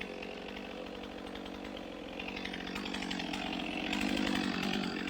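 Two-stroke chainsaw running steadily, growing louder about two seconds in.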